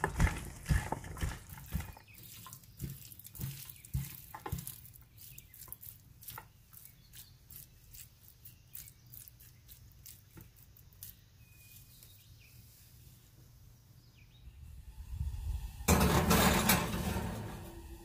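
Tongs tossing raw chicken strips with sliced peppers and onions in a ceramic baking dish: sharp clicks and taps of the tongs against the dish, growing sparser and fainter. Near the end, a loud scraping rush of about two seconds as the dish goes onto the oven rack.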